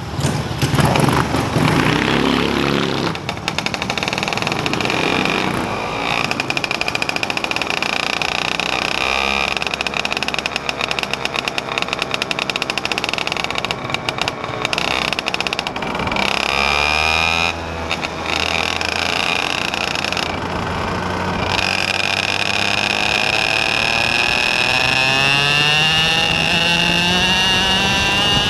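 Vehicle engine running under way, its pitch rising and falling with throttle, and rising steadily over the last few seconds as it accelerates.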